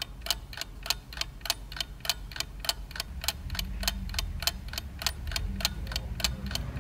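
Rapid, even ticking, about four ticks a second, over a low steady hum.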